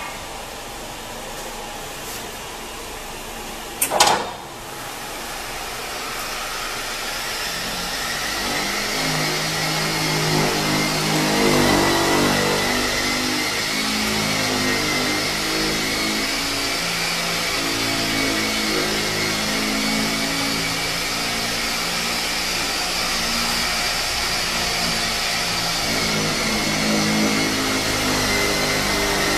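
Phoenix Automotive PA-7335 in-floor scissor lift being raised: a sharp click about four seconds in, then its hydraulic power unit's electric motor and pump run steadily with a whine, building up over several seconds as the scissor arms lift.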